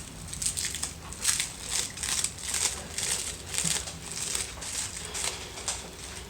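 Plant packaging crinkling and rustling as it is unwrapped by hand, a quick irregular run of rustles.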